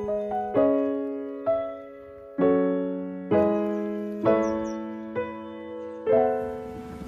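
Soft piano music: slow chords struck about once a second, each left to ring and fade.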